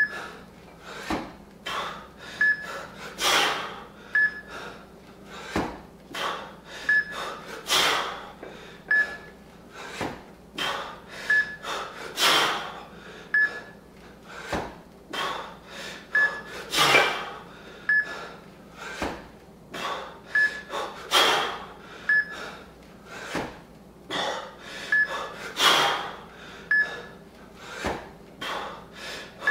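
Heavy, rhythmic breathing of a lifter doing double kettlebell jerks, with a hard exhalation about every four and a half seconds, once per rep, and quicker breaths between. A faint short beep repeats throughout.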